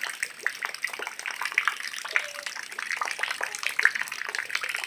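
Rain falling steadily, with many close drips and splashes.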